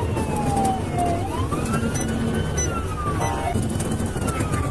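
Police car siren wailing in slow rising and falling sweeps over steady road and engine noise from the pursuing car. About three seconds in, a brief burst of a different, buzzier tone cuts across the wail.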